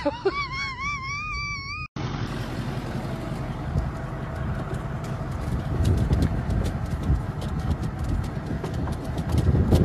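A high, wavering call for about two seconds. Then, after a sudden cut, the steady low rumble of a pickup truck's engine running, with light clicks scattered through it.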